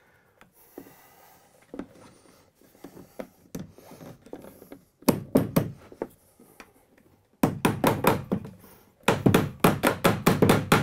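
Cable staple being tapped into a wooden wall stud over an electrical cable: a few light knocks, then quick runs of sharp taps from about halfway, about five a second near the end.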